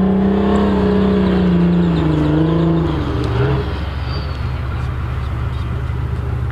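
Heavy military vehicle's engine running loudly, its note sagging and dropping about three seconds in, then settling into a steadier, lower rumble.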